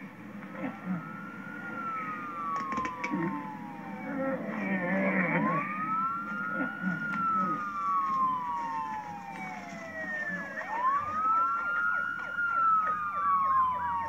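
Police siren wailing, heard through a TV speaker: three slow cycles about five seconds apart, each rising quickly and then falling away over about four seconds, with fainter overlapping copies of the sweep.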